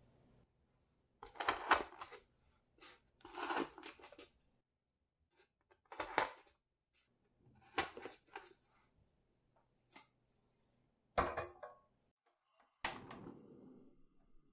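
A series of short bursts of light clicking and rustling from handling small toothpick-skewered mung-bean sweets, about seven bursts in all.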